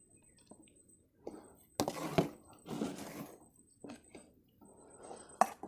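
A spoon knocking and scraping against a cooking pan as a mixture is tipped in: a sharp knock about two seconds in, a second or so of scraping, and another sharp clink near the end.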